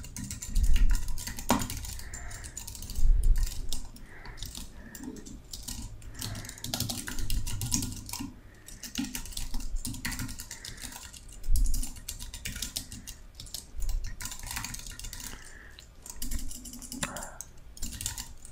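Typing on a computer keyboard: an uneven run of keystroke clicks with short pauses, and a few heavier thumps among them.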